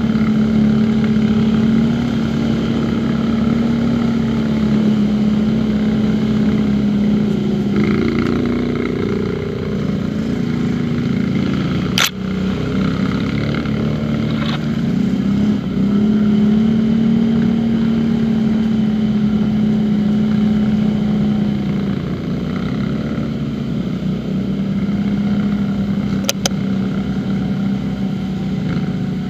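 Quad bike (ATV) engine running at steady throttle on a woodland trail, its pitch dipping briefly a couple of times as the throttle eases. A single sharp knock about twelve seconds in, and a pair of quick clicks near the end.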